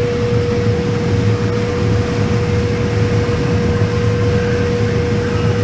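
Combine harvester running steadily while harvesting corn, heard from inside the cab: a low drone with one steady high whine over it.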